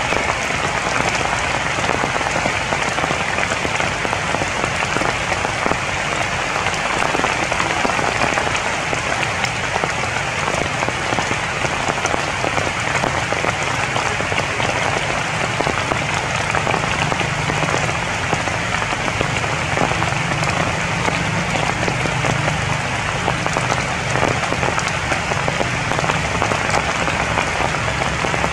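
Steady rain falling on the broad leaves of the tree canopy.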